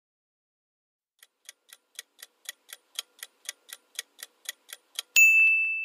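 Countdown-timer clock-ticking sound effect, about four sharp ticks a second, growing louder. It ends just after five seconds in with a single bright ding that rings on.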